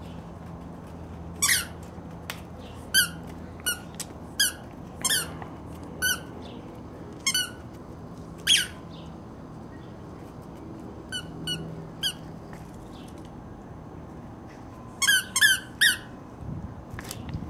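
Squeaky tennis-ball dog toy squeaking in short, high-pitched bursts as a puppy chews it. About a dozen squeaks come irregularly, with several in quick succession near the end.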